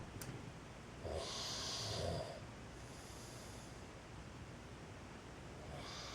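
A man snoring in his sleep: one loud snoring breath starting about a second in and lasting about a second, then quieter breathing, with the next breath beginning near the end.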